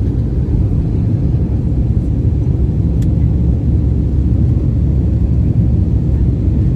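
Steady, loud, low rumble of jet engines and rushing air inside the cabin of an Airbus A320-family airliner climbing out after takeoff. A faint click sounds about three seconds in.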